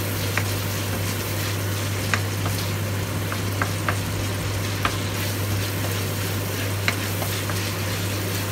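Marinated chicken pieces sizzling in hot oil in a nonstick wok, stirred with a wooden spatula that scrapes and taps the pan a few times. A steady low hum runs underneath.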